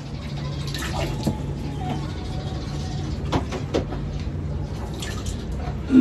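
Water running and splashing as pigeon drinkers are washed out, over a steady low hum, with a few knocks in the middle and a louder thump at the very end.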